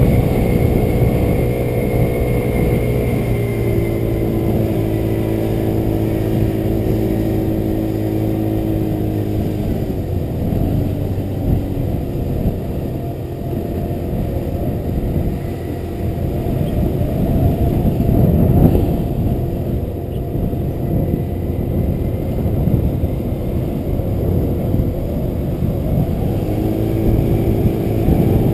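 Motor scooter's engine running while riding, with wind rumble on the microphone. The engine's pitch drops twice in the first ten seconds, is mostly buried under the wind in the middle, and rises again near the end.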